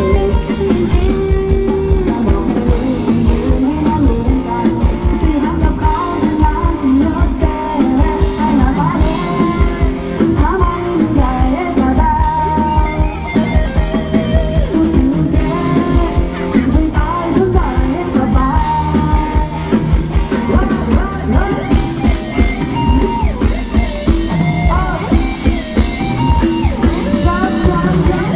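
Band playing amplified Thai ramwong dance music, a singer's voice over a steady drum beat.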